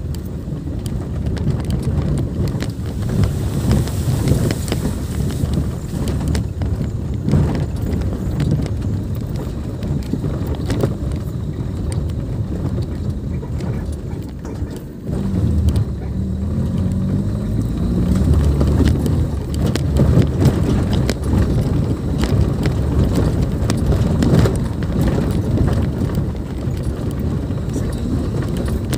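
A car driving over a rough dirt forest track: a steady low rumble of engine and tyres, with scattered knocks and rattles as it goes over the bumps.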